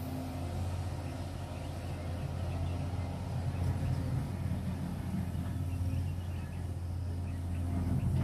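Cat 345GC hydraulic excavator's diesel engine running steadily as the machine digs coal and swings, a low, even hum that grows a little louder near the end.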